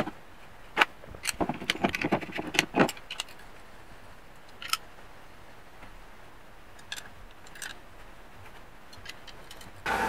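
Light metallic clicks and clinks as a small machined aluminium housing and its screws are handled and test-fitted together, a quick cluster in the first few seconds and then a few scattered taps.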